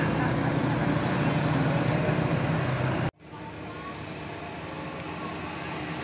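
Road traffic passing close by: engine noise of a car, a motorcycle and a bus. About halfway through it breaks off abruptly and gives way to quieter engine noise from an approaching bus.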